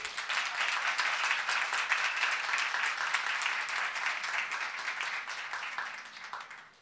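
Audience applause, many people clapping, starting at once and tapering off near the end.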